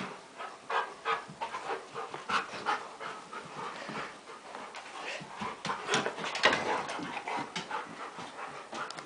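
Puppies panting hard in short, irregular breaths during rough play.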